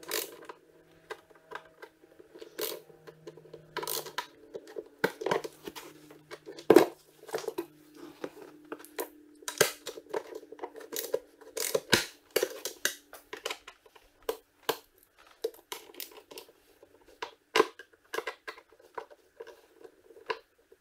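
Irregular sharp clicks and knocks of a Phillips screwdriver and mounting hardware being worked inside a hard saddlebag, with rustling as the bag is handled.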